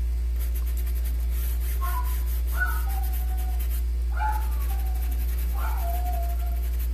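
Four short animal calls, each falling in pitch, over a steady low hum.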